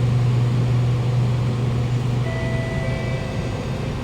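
Steady low hum and rumble inside a Kawasaki Nippon Sharyo C751B metro train car, with faint thin whining tones coming in about two seconds in.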